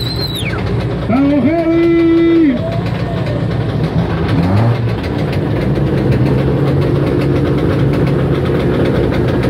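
Several vehicle engines running steadily together at idle, with crowd voices. About a second in, a loud held note sounds for a little over a second, and a short high whistle rises and falls at the very start.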